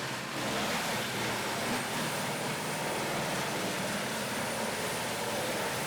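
Heavy wood-processing machine (a chipper or grinder) running steadily under power, with a faint high thin whine joining about two seconds in.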